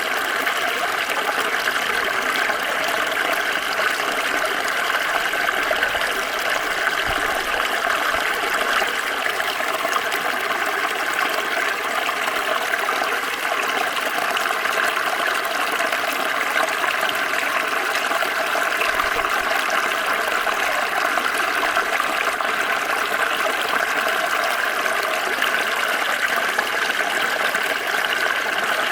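Water flowing and splashing in a small stream, a steady even rush and babble.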